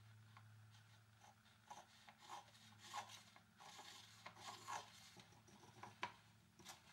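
Faint scratching of a height gauge's scribe drawing lines along wooden knife handle scales, broken up by a few light clicks as the gauge and a steel block are shifted on the stone surface plate.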